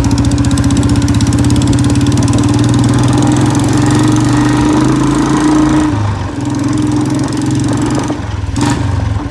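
Royal Enfield Bullet Standard 350's single-cylinder engine running on the move through a long Punjab-style free-flow silencer and C-bend pipe: a loud, rapid, even exhaust beat. The note eases off for a moment about six seconds in, and a short sharp crack comes near the end.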